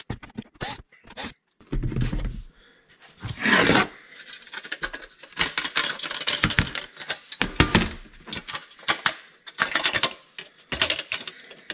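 Hand disassembly of a steel ethernet hub case: a busy run of small metallic clicks and scrapes as screws are taken out and the circuit board and metal shell are handled. There are a couple of louder knocks about two and three and a half seconds in.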